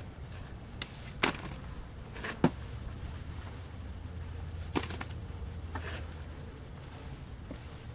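Wet cement mortar being scooped by hand from a wheelbarrow: about five short, sharp knocks and scrapes spread over several seconds, over a steady low hum.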